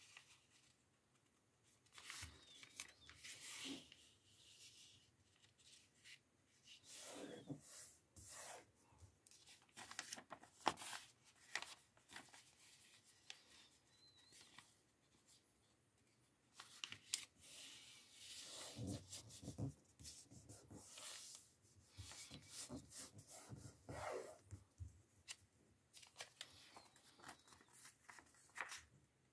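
Origami paper rustling and crackling as it is folded by hand and the creases are pressed flat, in short scattered rustles with quiet gaps between.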